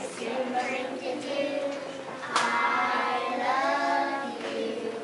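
A group of young children singing together, with a louder held phrase starting about halfway through.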